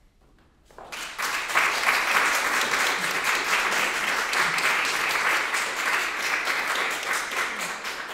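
Audience applauding. The clapping breaks out about a second in, after a near-quiet pause at the end of the music, and runs on as a dense, steady patter.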